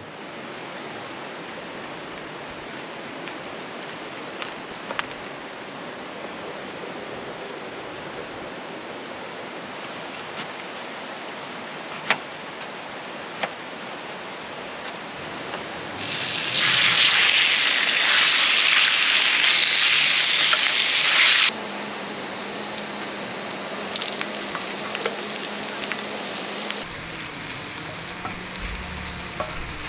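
Chicken and bell peppers frying on a steel disc griddle over a propane burner. A steady hiss with a few sharp taps gives way, a little past halfway, to a loud sizzle for about five seconds. It then settles into a steady sizzle, with a wooden spatula stirring and scraping the metal near the end.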